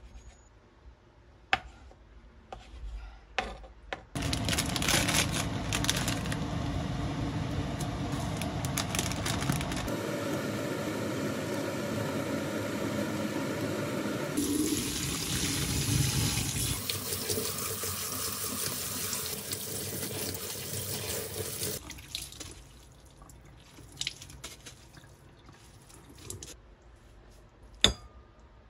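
Water running from a kitchen tap into a sink, a steady rush from about four seconds in until about twenty-two seconds, shifting in tone a few times along the way. Light knocks of kitchen utensils come before and after, with one sharp knock near the end.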